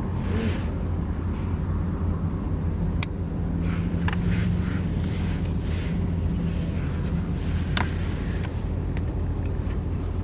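Steady low rumble of a car driving, engine and road noise heard from inside the cabin, with a couple of short sharp clicks about three seconds and eight seconds in.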